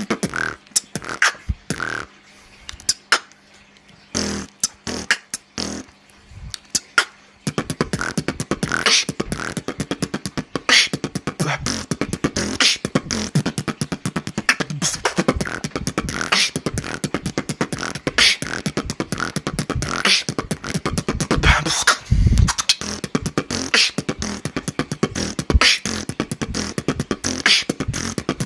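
Solo beatboxing into a handheld microphone: sparse, separate kick and snare hits with gaps at first, then after about seven seconds a dense, fast stream of clicks and hits, with a deep low bass note about three quarters of the way through.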